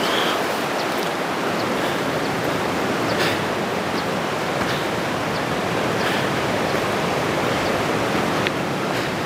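Steady rush of flowing water, with a few faint clicks of footsteps on loose stones.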